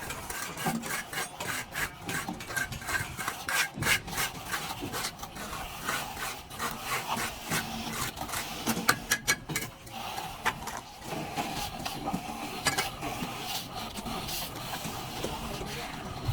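Plastering trowel scraping and rubbing over wet plaster in many short, irregular strokes, settling into a steadier rub in the second half.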